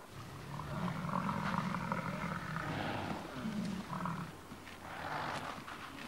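American bison bulls bellowing as they fight head to head: one long, low bellow starting about half a second in, then two or three shorter ones.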